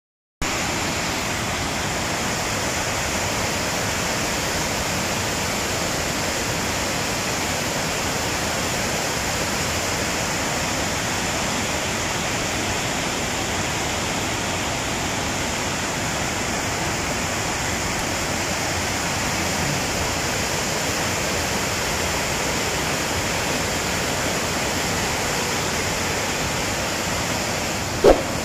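Waterfall rushing, a steady, unbroken roar of falling water. A brief, sharp pitched sound cuts in near the end.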